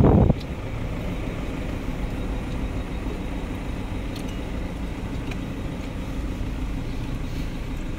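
Steady low rumble of road vehicle noise, with a few faint ticks. A loud burst of wind on the microphone cuts off just at the start.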